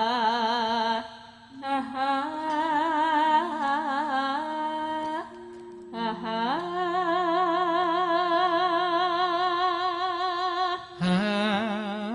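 A female pesinden singing a slow Javanese song with a wide, wavering vibrato, in long drawn-out phrases with short breaks between them; a single note is held for about four seconds from just past the middle. A low steady tone sounds beneath the voice.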